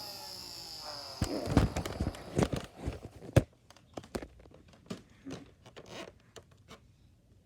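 Nerf foam-dart blaster being worked and fired: a high whine for about the first second, then a quick run of sharp clacks and thumps, the loudest about three and a half seconds in, followed by lighter scattered clicks of handling.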